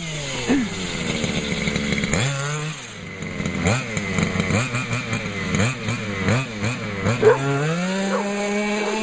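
Small engine of a little car towed on a lead, running and revving up and down repeatedly, then holding a steadier, higher speed near the end.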